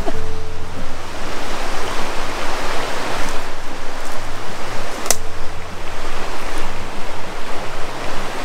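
River water rushing over rocks in rapids: a loud, steady hiss, with one sharp click about five seconds in.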